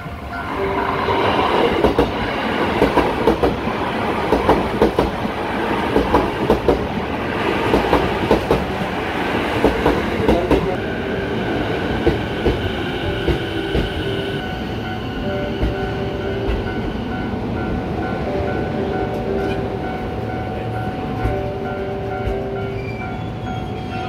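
Saikyo Line electric commuter train running through a level crossing, its wheels clattering over the rail joints for about the first ten seconds. After that comes a steadier running sound with a high electric motor whine. A level-crossing warning bell rings steadily behind it throughout.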